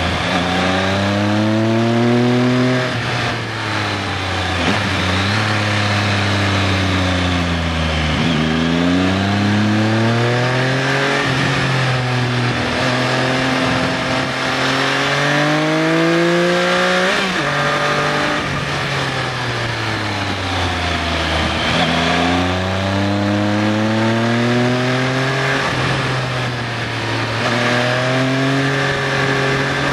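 Triumph Sprint ST 955i's three-cylinder engine heard from the rider's seat, its revs climbing and falling again and again as it accelerates out of bends and slows into them, with a few abrupt pitch changes at gear shifts. A steady rush of wind runs underneath.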